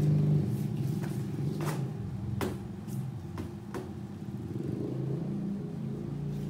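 A steady low engine hum, with a few short sharp clicks scattered through the first few seconds.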